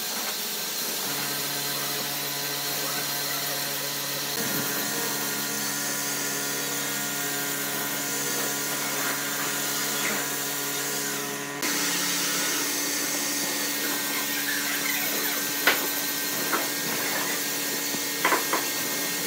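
Gravity-feed compressed-air spray gun hissing steadily as it sprays finish, with a steady machine hum underneath. A few short clicks come near the end.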